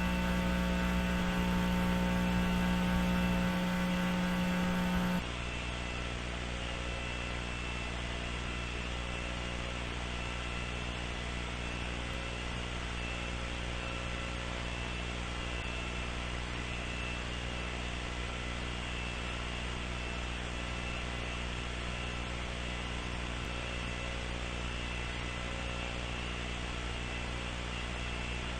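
A steady electronic hum with hiss, made of many fixed pitched tones, with no change in pitch. It is louder for about the first five seconds, then drops to a quieter, even level and holds there.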